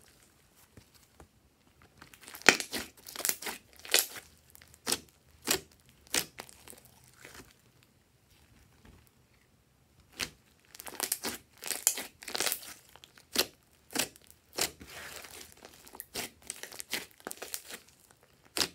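Hands squeezing and stretching a large mass of glossy slime, making irregular sharp pops and crackles as trapped air bursts. There are quiet pauses near the start and from about seven to ten seconds in.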